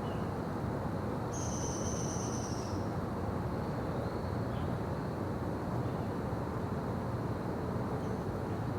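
Daytime forest ambience: a steady rushing background noise with a bird calling over it, one drawn-out high note about a second in that lasts about a second and a half, then a few faint short chirps.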